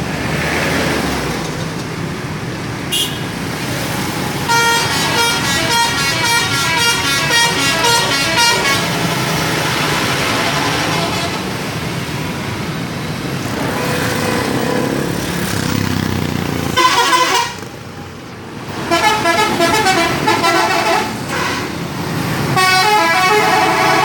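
Telolet horns: multi-tone musical air horns playing quick, tune-like phrases in several bursts, in a horn battle, over steady engine and road noise.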